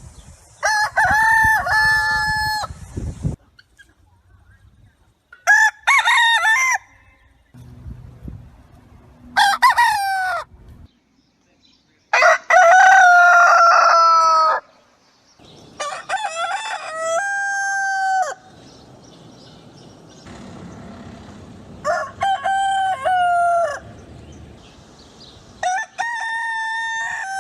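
Rooster crowing: seven cock-a-doodle-doos, each one to two and a half seconds long, a few seconds apart, with some crows pitched higher than others.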